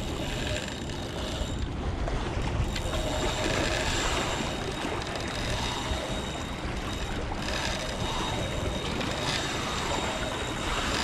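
Water washing and sloshing against jetty rocks, with wind rumbling on the microphone; a steady noise with no distinct strikes.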